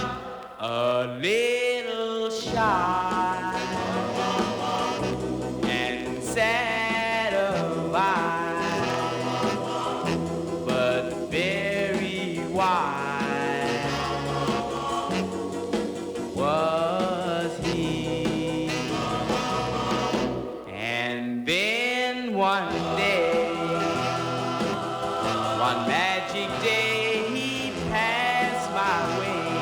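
Vocal group record playing: voices singing together in choir-like harmony over an instrumental backing.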